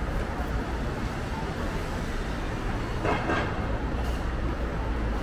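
Steady low rumble of a passing train, with a brief louder rush about three seconds in.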